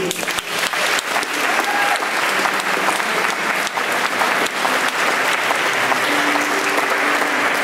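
Congregation applauding: many people clapping steadily and evenly.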